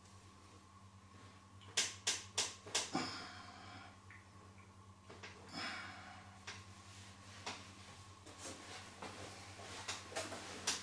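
Massage sounds of hands on the body: four sharp smacks in quick succession about two seconds in, then rubbing and a few scattered taps, over a low steady electrical hum.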